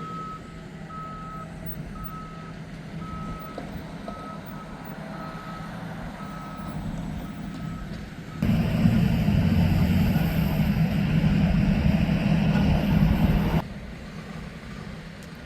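Electronic beeping at about two beeps a second, which stops about seven seconds in. About a second later a much louder, steady, rushing sound starts suddenly, lasts about five seconds and cuts off just as suddenly.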